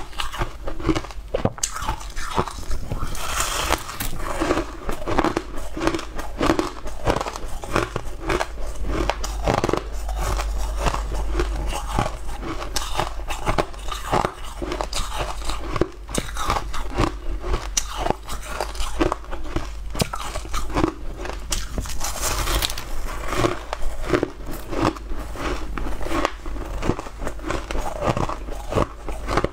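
Crushed, blue-tinted ice being bitten and chewed close to the microphone: dense, continuous crunching with no real pause.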